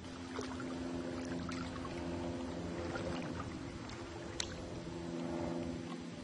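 A distant engine running steadily, a low even drone, with faint water sounds and a few small clicks.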